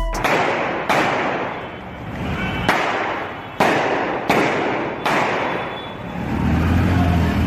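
Six gunshots at irregular intervals over about five seconds, each with a long echoing tail. Near the end, the low rumble of street traffic rises.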